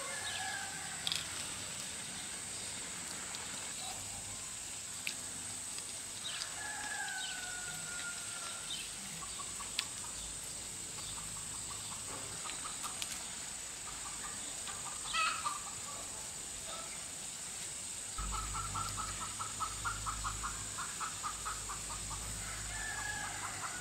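Farmyard chickens: a rooster crowing a few times, drawn-out falling calls, over a steady high-pitched hiss. About three-quarters through, a fast, even run of short clucks starts with a low rumble under it.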